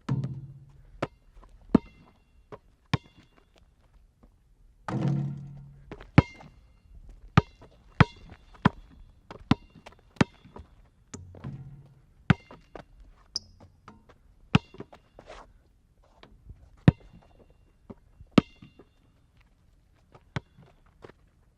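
Objects being handled and moved: an irregular series of knocks and clunks as things are picked up and set down, several with a short metallic ring. Three heavier, lower thuds with a longer rumble come near the start, about five seconds in and about eleven seconds in.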